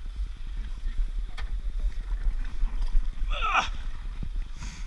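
Steady low rumble of wind and water around a small open outboard motorboat at sea. A little over three seconds in, a person's voice gives one short call that falls in pitch.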